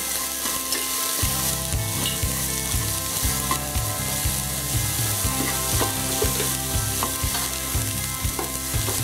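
Chopped onion, garlic and ginger paste and green chillies sizzling in hot coconut oil as they sauté until soft, stirred with a wooden spatula whose strokes against the pan come about twice a second from about a second in.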